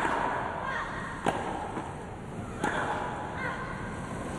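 Tennis balls being struck by rackets in a baseline rally on grass: four sharp pocks about 1.3 seconds apart, as the players trade groundstrokes.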